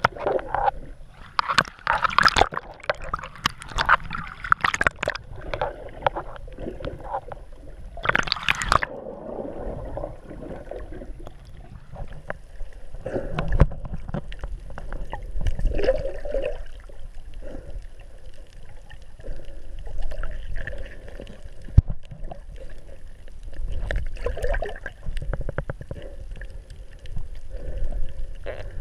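Water sloshing and gurgling around a snorkeller's underwater camera, with splashing for the first nine seconds or so, then a muffled, quieter underwater sloshing.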